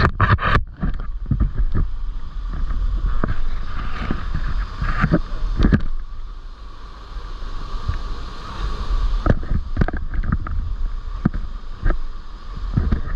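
Rushing water of a creek waterfall and pool, with frequent sharp splashes and knocks and a low rumble of wind or handling on the microphone.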